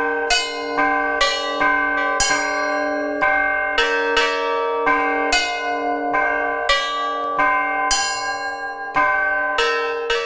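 Orthodox church bells rung by hand in the belfry by a first-time ringer: smaller bells of several pitches struck about twice a second, each ringing on, over the steady hum of a lower bell.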